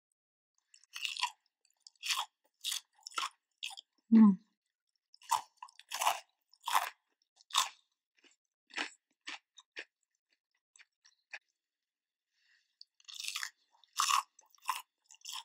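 Crunchy Cheetos-coated fried popcorn chicken being chewed close to the microphone: crisp crunches every half second to second, pausing for a few seconds past the middle, then starting again. One short low thump about four seconds in is the loudest moment.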